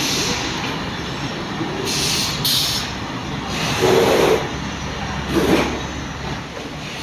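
Industrial machinery noise on a refrigerator production line: a steady mechanical din with two short hisses about two seconds in and louder swells around four and five and a half seconds.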